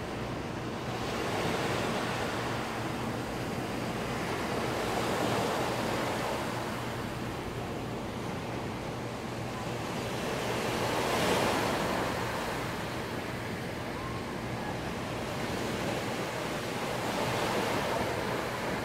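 Small ocean waves breaking and washing up a sand-and-pebble beach: a continuous surf wash that swells and eases every few seconds, loudest about halfway through.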